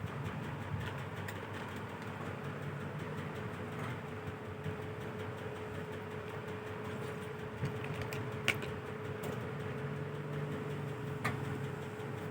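A steady low hum with a faint constant tone, broken by a few sharp clicks. The loudest click comes about eight and a half seconds in, and another comes near the end.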